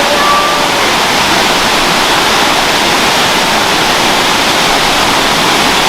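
A waterfall rushing steadily: loud, even falling-water noise with no breaks.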